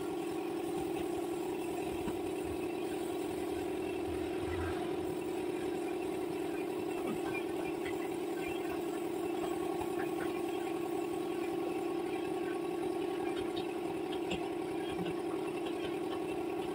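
A steady machine hum, a motor running without change, with a strong mid-pitched tone and a few faint light ticks over it.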